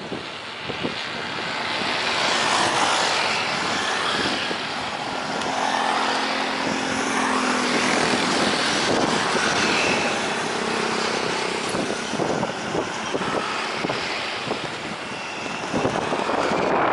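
Propeller-driven military aircraft approaching to land, its engine drone swelling about two seconds in and staying loud, over a steady rushing noise.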